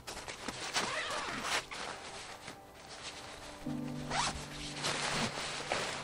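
A zipper pulled in a series of quick strokes, over soft background music.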